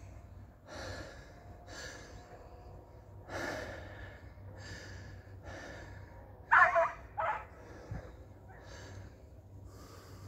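Basset Fauve de Bretagne hound giving two short, high yelps a little past halfway, the loudest sounds here, between breathy puffs close to the microphone about once a second.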